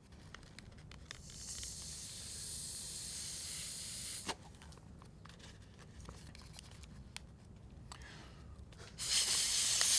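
Breath blown into a folded paper origami model to inflate it: a steady hiss of air lasting about three seconds, then a quieter stretch with faint clicks and rustles, and a second, louder blow starting near the end.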